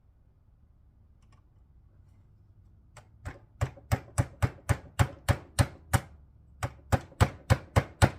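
Small hammer lightly tapping retaining clips into place: a run of about fifteen quick, light taps, about three a second, starting about three seconds in, with a brief pause near six seconds.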